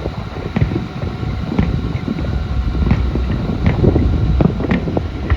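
Distant fireworks popping and cracking at irregular moments, about seven reports, over a steady low rumble of wind on the microphone.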